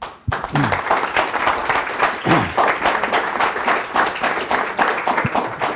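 Small audience applauding, a steady patter of many hands clapping that starts a moment after the beginning.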